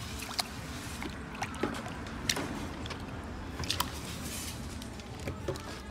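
Knife cutting stingray meat on a cutting board, with scattered sharp taps and clicks over a steady background rush.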